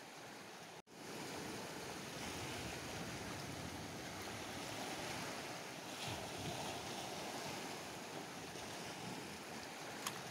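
A steady rushing of wind and surf on an open rocky shore, cut off briefly just under a second in.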